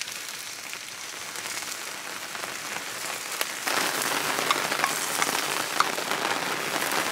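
Steady patter of rain, joined about halfway through by the louder crackling hiss of a garlic cream sauce simmering and bubbling with yabbies in a pan over a campfire, with a few small pops.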